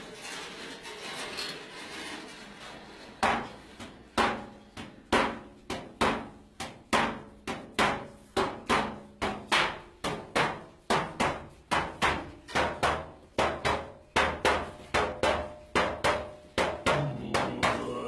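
Large hand-held frame drum struck in a steady beat, about two strokes a second, each stroke ringing out briefly. The drumming starts about three seconds in, after a faint rustle.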